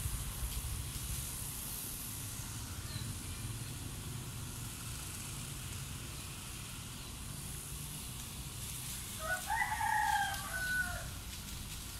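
A rooster crowing once, a call of about a second and a half that drops in pitch at its end, about nine seconds in, over a steady low rumble.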